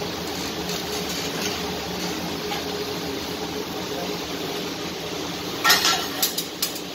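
Steady background noise with a low hum, broken about six seconds in by a quick run of sharp clicks or knocks.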